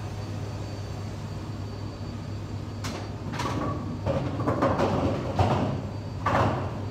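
Bowling-alley machinery running with a steady low hum. From about three seconds in comes a run of clattering knocks and rattles, loudest near the end.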